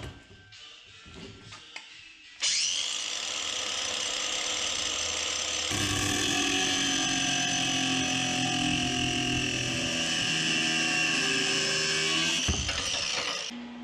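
Angle grinder switched on about two seconds in and running at speed. A few seconds later its disc bites into a metal rod and grinds steadily, then it is released and spins down near the end.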